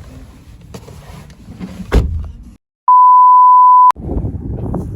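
A single steady, pure electronic beep tone lasting about a second, added in editing: the sound cuts to dead silence just before it and the outdoor background returns right after. Before it, outdoor background noise with a few light knocks.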